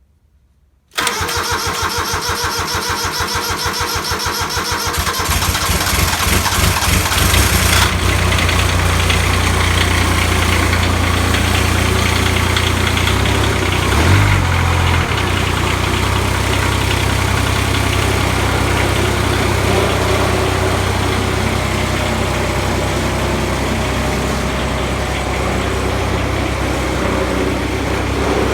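Woods 6215 mower's diesel engine cold-started: it cranks and catches about a second in with fast, even pulses, then settles into steady running.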